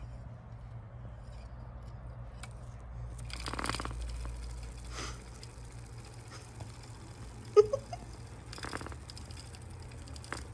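British Longhair kittens playing: scratchy rustling and scuffling in two longer bursts, about three and a half and eight and a half seconds in, with a sharp knock about seven and a half seconds in, over a steady low hum.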